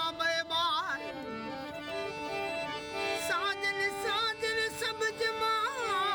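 Rajasthani Manganiyar Sufi song performed live: a male singer's ornamented, wavering vocal phrases over sustained harmonium chords.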